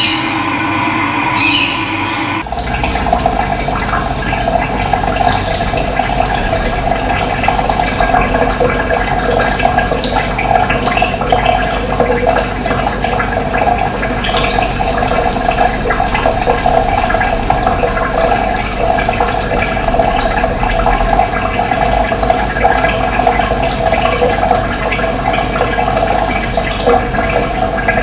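Running water rushing steadily. It takes over about two and a half seconds in from a briefly heard different sound with a low steady hum.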